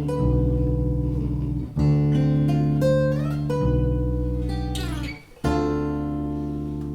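Guitar-led instrumental music with a bass line underneath. Chords are struck about every two seconds, ending on a last chord a little over five seconds in that rings out and slowly fades.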